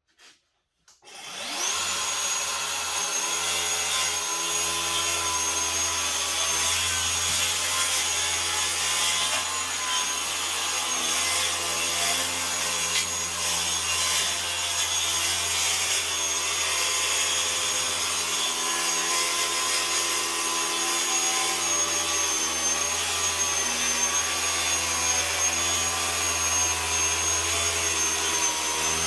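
Track saw starting up about a second in, its motor whine rising, then running steadily as it rips along a long length of cypress pine on joined guide rails.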